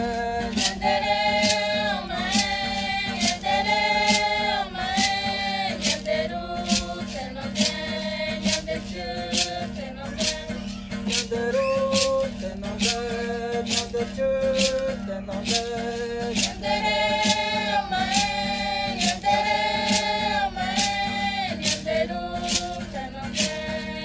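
Mixed group of women's and men's voices singing a Tupi Guarani song together, accompanied by an acoustic guitar, with a steady beat.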